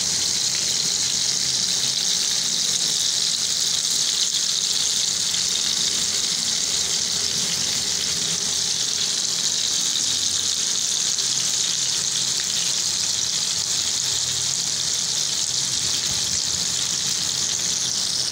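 Beef-mince chapli kababs shallow-frying in hot oil in a frying pan: a steady sizzle.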